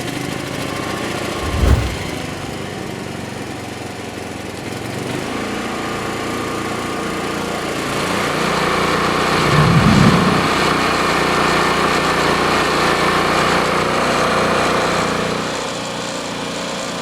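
Briggs & Stratton P3000 inverter generator running with economy mode off, just after starting. It speeds up and gets louder about eight seconds in, then eases back near the end. Two short low thumps come, about two seconds in and about ten seconds in.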